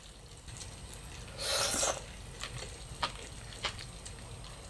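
Eating from a hot pot with wooden chopsticks: a short breathy rush of air at the mouth about a second and a half in, then a few light clicks of the chopsticks against a wooden bowl.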